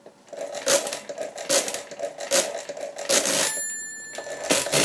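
Muldivo pinwheel mechanical calculator being cranked anti-clockwise to subtract: about four turns, each a clatter of gear and carriage clicks, then its bell rings with a clear tone that fades. The bell is the sign that the subtraction has overdrawn the result register below zero during division.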